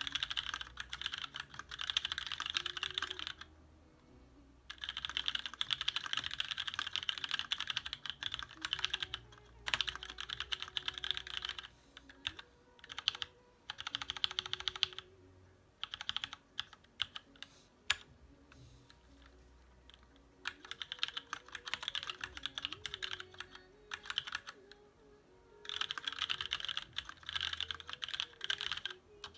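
Fast typing on a TX1800 aluminium-case custom mechanical keyboard with lubed Cherry MX Black linear switches and thick ABS Cherry-profile keycaps: dense runs of key clacks broken by several short pauses. Faint music plays underneath.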